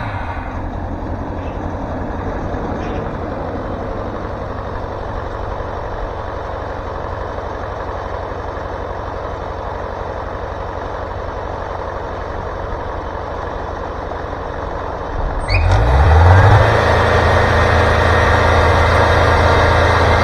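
The 40-horsepower turbo diesel engine of a Wood-Mizer LT40 Super Hydraulic sawmill running with a steady hum. About fifteen seconds in it revs up, rising in pitch, and then runs on louder.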